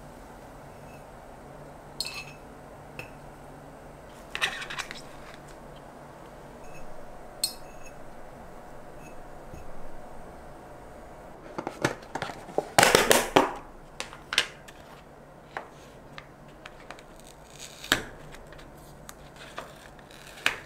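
Small handling sounds while a moss terrarium is put together: scattered light clicks and taps against a glass jar and a plastic tray. A little past halfway comes a dense run of scraping and clicking lasting about a second and a half, the loudest part.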